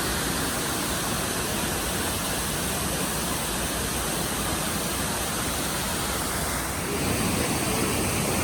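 Waterfall roaring: a steady rush of falling water that grows slightly louder near the end.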